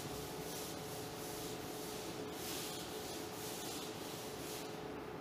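Chalkboard duster wiping chalk off a green board: soft rubbing swishes in repeated strokes, about two a second.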